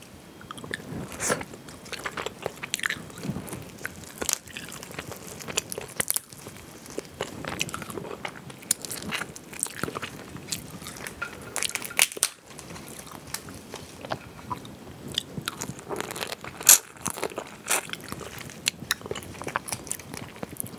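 Mala crayfish shells cracking and crunching as gloved hands pull them apart, close-miked: a run of irregular sharp cracks, the loudest about seventeen seconds in.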